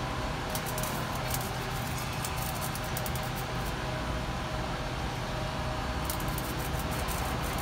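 Mobile cranes' diesel engines running steadily in a low hum during a two-crane lift, with scattered faint metallic clicking about half a second in and again near the end.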